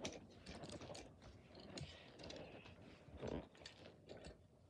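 Faint, scattered clicks and small taps from handling small die-cast toy cars and their packaging.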